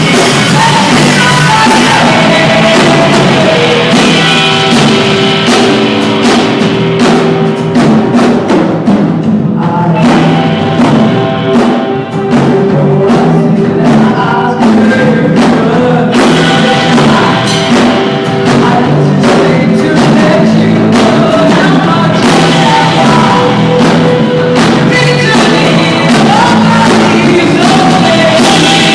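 Live pop-rock band playing loud, with a singer over drums and instruments, captured on a phone so the sound is distorted.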